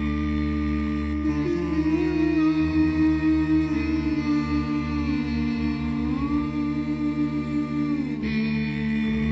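A cappella music of layered humming voices holding long notes that glide slowly up and down over a low drone, the chord shifting about eight seconds in.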